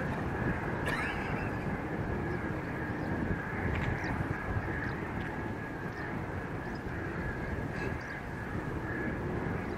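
Distant jet airliner's engines rumbling steadily on the takeoff roll, with a steady high whine over the rumble. A few short bird calls cut in now and then.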